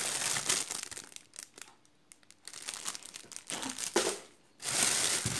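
Thin plastic bags around the packed items crinkling as they are handled. It is nearly quiet around the middle, then a loud spell of crinkling near the end.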